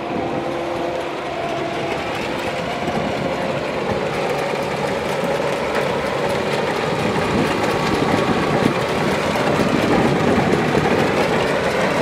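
Kubota DC-95 GM combine harvester working in a rice field: its diesel engine runs steadily under load, mixed with the continuous rattle of the harvesting machinery.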